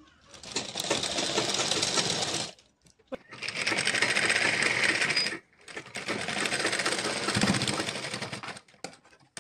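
Black domestic sewing machine stitching in three runs of two to three seconds each with short pauses between them, sewing a stay-stitch line a quarter inch in from a blouse's neckline edge.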